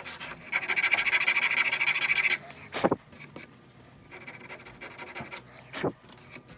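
Fine wood rasp stroked rapidly back and forth across a wooden shotgun stock, smoothing away coarse-rasp marks in the comb cutout. The rasping stops abruptly about two seconds in, followed by a few light knocks.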